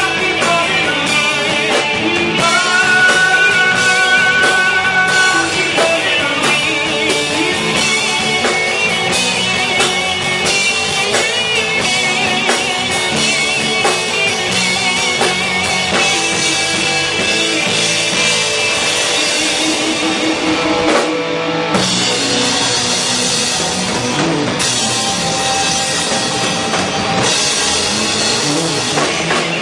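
Rock band playing live, with a drum kit and guitar.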